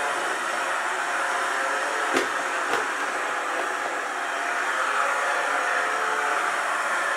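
clever&clean M-series 002 robot vacuum running with a steady hum from its suction fan. Two light knocks come a little past two seconds in, about half a second apart.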